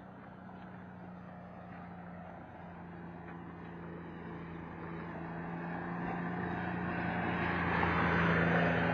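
A motor vehicle driving along a paved road: a steady engine or motor hum with road and wind noise, growing gradually louder and peaking near the end.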